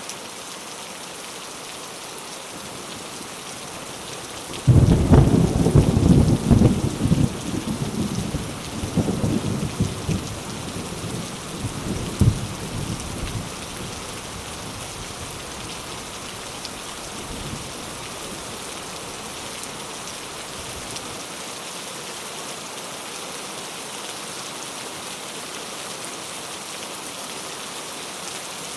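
Steady rain falling, with a thunderclap breaking about five seconds in and rumbling away over the next several seconds, then rain alone.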